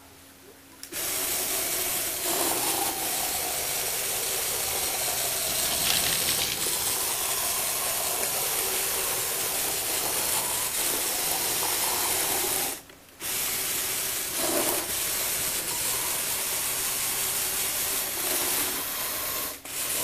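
Small electric motor and plastic gear train of a Lego Technic radio-controlled vehicle whirring as it drives. It stops briefly about two-thirds of the way through, then runs again.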